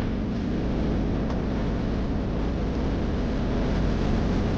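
Steady road and engine noise of a car driving, with a deep rumble throughout.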